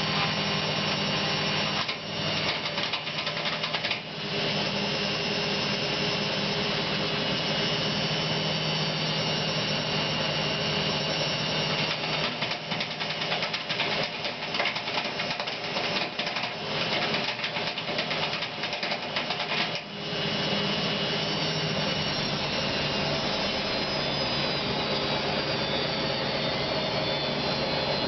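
Indesit washing machine on its spin cycle, running with a steady hum and whine and, in stretches about two seconds in and again from about twelve to twenty seconds in, a rapid knocking.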